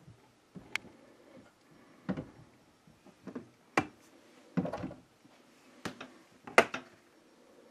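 Irregular knocks, taps and clicks of a person working on the outside of a window frame, heard from the inside through the glass. There are about eight in all, some sharp and some duller, and the loudest comes near the end.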